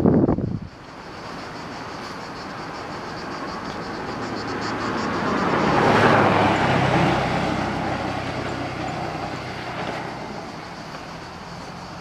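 A car driving past: its engine and tyre noise swells to a peak about halfway through, then fades away.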